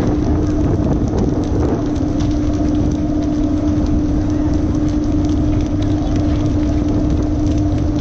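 Fishing boat's engine running with a steady hum and rumble, under the rush of water and scattered light clicks and taps.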